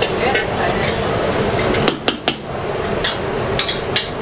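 A metal spatula clanks and scrapes against a large steel wok as pad thai noodles are stir-fried, over a steady frying hiss. About two seconds in the hiss briefly drops and a few sharp clanks stand out.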